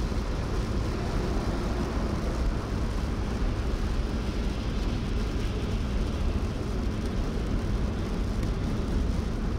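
Steady road noise inside a car driving on a wet motorway in rain, the tyres running on wet asphalt.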